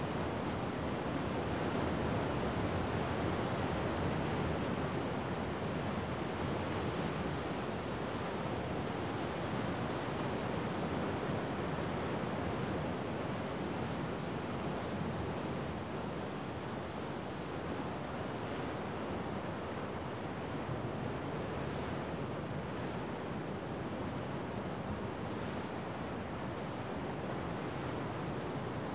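Rough winter surf of the Sea of Japan breaking and washing over a rocky shore: a continuous wash of crashing waves, a little louder in the first few seconds.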